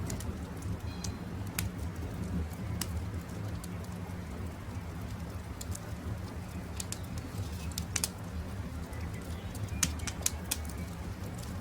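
Campfire crackling, with irregular sharp pops over a steady low rumble; the loudest pops come about eight and ten seconds in. A few faint bird chirps sound in the background.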